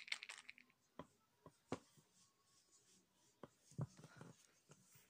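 Faint handling noises of makeup application: a few scattered light clicks and taps from a makeup brush and product case being handled, with a soft low knock about four seconds in.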